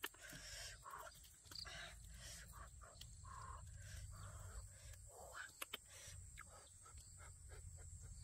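Faint, soft crackles and small clicks of a charred, fire-grilled whole fish being torn open by hand, its skin and flesh pulled apart, with two sharper clicks a little after halfway.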